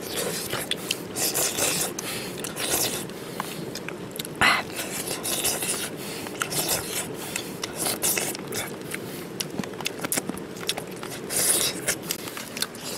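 A person eating by hand close to the microphone: chewing and lip smacks, with many short clicks and rustles throughout.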